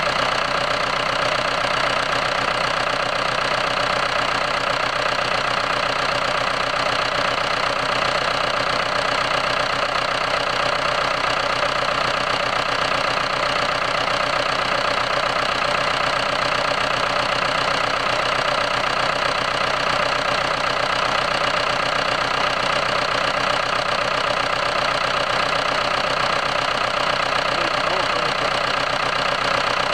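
Four-cylinder 273 diesel engine from a New Holland TS100A tractor, out of the tractor and running steadily, holding about 55 to 60 psi of oil pressure.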